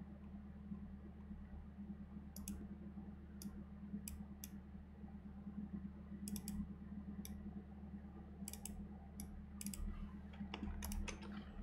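Scattered clicks of a computer mouse and keyboard, some in quick pairs, over a steady low hum.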